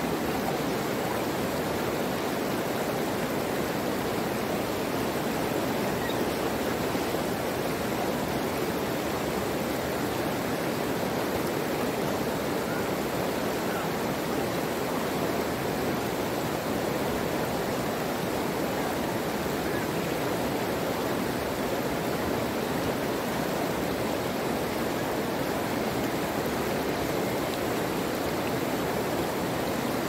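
Flowing water rushing steadily, an even hiss-like wash with no breaks or changes.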